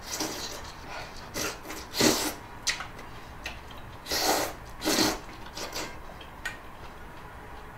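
Eating noises: a person slurping and chewing food from a bowl, in short irregular bursts.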